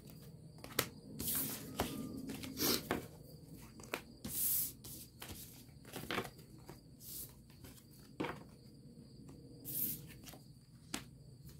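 Tarot cards being picked up off a table one after another: about a dozen short sliding swishes and light taps at irregular intervals.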